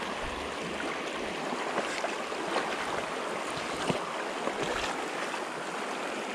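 Shallow, rocky trout stream running over a riffle: a steady rush of water, with a few brief ticks close by.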